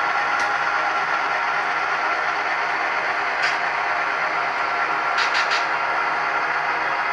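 Model railroad freight cars rolling steadily past on the track, a continuous rolling noise with a few faint steady tones and occasional sharp clicks, three in quick succession about five seconds in.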